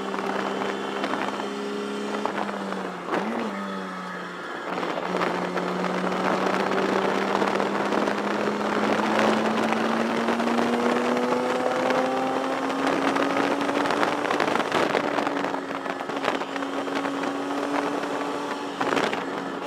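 1973 Datsun 240Z race car's straight-six engine pulling under racing load, heard from inside the cabin. The engine note drops about three seconds in with a quick blip, then climbs slowly and steadily for the rest of the stretch.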